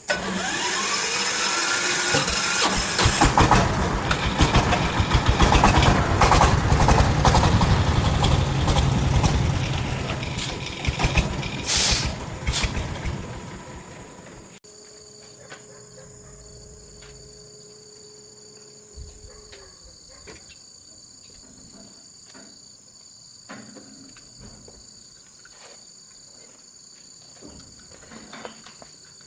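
A loud engine runs with a heavy low rumble for about fourteen seconds, starting with a brief rising whine, then stops abruptly. After that, crickets chirp steadily with a few faint clicks.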